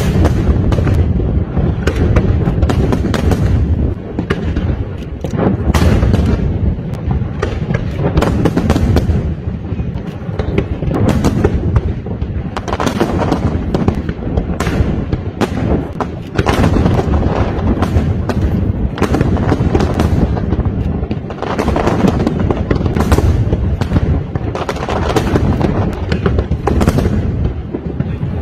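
Aerial firework shells bursting in a dense barrage, bang after bang overlapping with barely a pause, with a few brief lulls.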